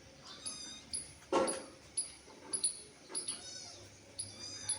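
Young animals squeaking with short, high-pitched cries about twice a second, and one louder, lower cry about a second and a half in.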